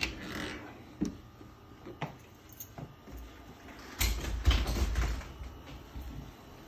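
Closet door being closed: a few light knocks, then a louder low rumbling thump with sharp knocks about four seconds in.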